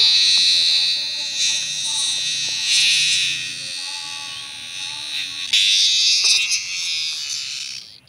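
A large cicada held in the hand giving a loud, harsh buzzing call that swells and eases several times. It is strongest near the end and cuts off abruptly right at the close.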